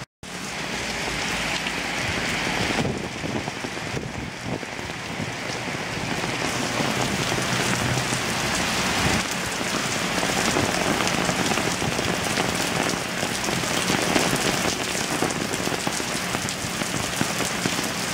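Heavy thunderstorm rain pouring onto a street and pavement, a steady dense hiss of drops that grows fuller and brighter after about six seconds.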